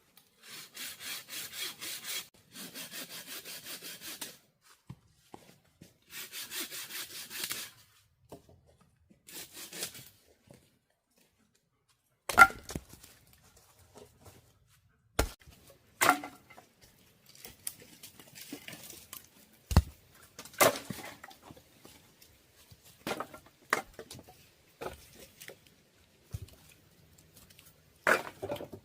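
Hand saw cutting through wood in four short bouts of rapid strokes, followed by scattered sharp knocks and clatters of wood being handled.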